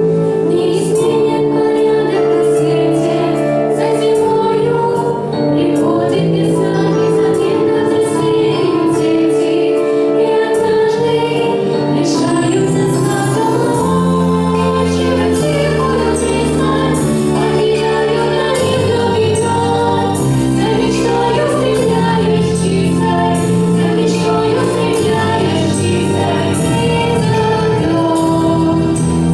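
A vocal ensemble singing a song in several voices over an instrumental accompaniment.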